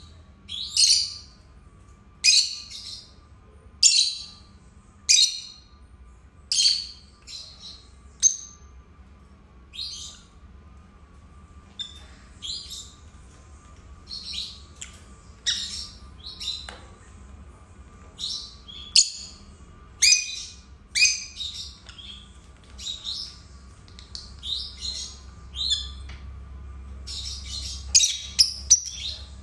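A pair of lutino peach-faced lovebirds giving sharp, high chirping calls about once a second. The calls come faster, in quick clusters, near the end.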